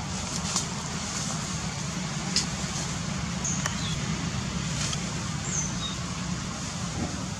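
Steady low rumble of outdoor background noise, with a few sharp crackles like dry leaves being disturbed. Several short high chirps come in the middle.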